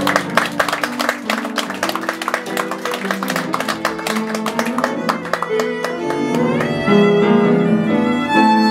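Violin and piano playing live: quick repeated notes for about the first five seconds, then longer held notes.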